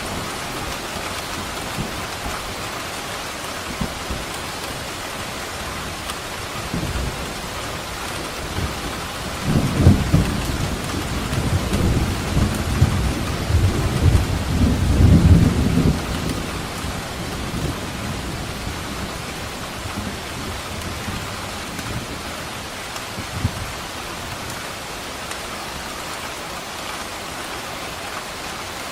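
Steady rain falling, with a rolling rumble of thunder that swells about a third of the way in and lasts several seconds, then a brief low thunder crack later on.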